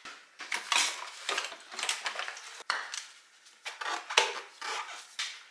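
Irregular clattering, knocking and scraping of plastic and metal parts being handled and pulled off a dirt bike, as the side panel and seat come off the Honda CRF450R.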